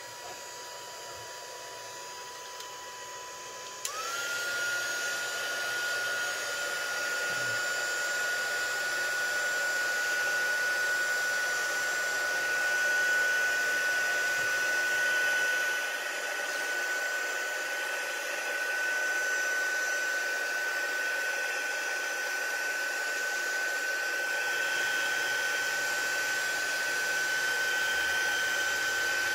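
Handheld craft heat tool blowing steadily to dry wet clear gesso on cardstock, with a single whine over the rush of air. About four seconds in it steps up to a higher, louder whine and holds there.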